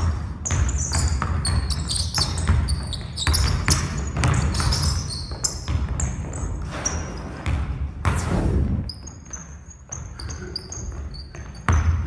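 Basketball dribbled hard on a hardwood gym floor, a quick run of bounces, with sneakers squeaking in short high chirps as the players cut and drive. The bouncing thins out after about eight seconds.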